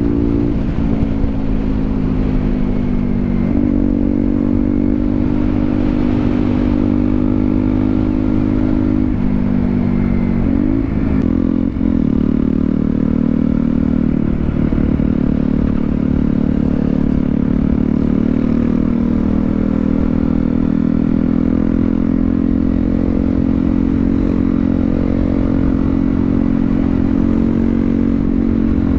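KTM Duke 125's single-cylinder four-stroke engine running under way. The engine note falls and climbs again several times in the first twelve seconds, then holds fairly steady.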